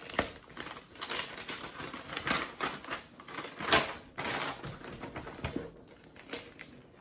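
Wrapping being pulled and torn off a small cardboard box, with irregular crinkles, scrapes and clicks. The loudest crackle comes about three and a half seconds in.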